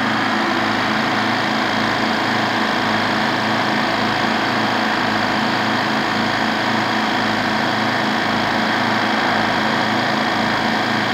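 IP-50 oilless electric air compressor, a 2 HP motor driving four cylinders, running steadily with an even hum, pumping up its tank as the pressure builds toward cut-out.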